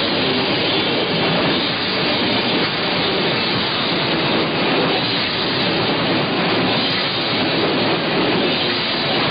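Death metal band playing live. The distorted guitars and drums blur into a loud, steady wash of noise with no clear notes.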